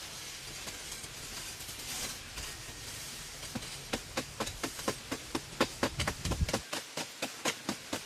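Hand tool striking in a quick, even rhythm, about three to four blows a second, starting about three and a half seconds in over a steady hiss.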